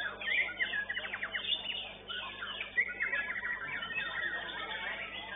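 White-rumped shama (murai batu) singing a loud, varied song of fast repeated trill notes and sweeping whistles.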